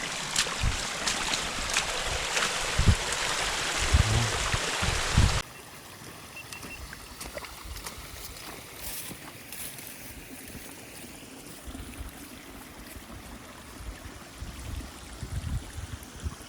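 Running water of a small spring-fed brook heard close by as a loud, even rush, with occasional low thumps on the microphone. About five seconds in it cuts off abruptly to a much quieter steady hiss of distant water.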